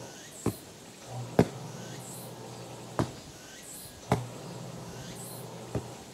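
A soccer ball kicked back and forth on grass: five sharp thuds spaced one to one and a half seconds apart, the loudest about a second and a half in.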